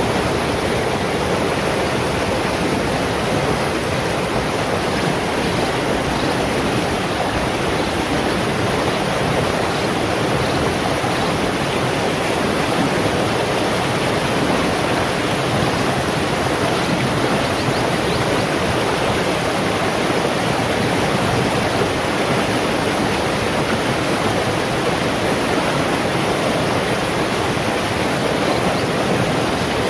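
Shallow rocky stream rushing over stones and small cascades: a steady, even rush of running water.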